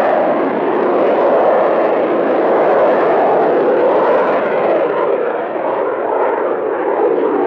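Twin Klimov RD-33 turbofan engines of a MiG-29M OVT thrust-vectoring fighter jet, a loud, steady jet noise as the aircraft climbs away during a display manoeuvre.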